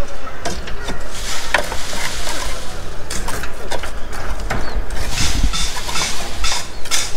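Irregular knocks, clatter and scraping of hand concrete work: concrete being shovelled and rodded into rebar-packed column and grade-beam forms, with the forms knocked to settle it.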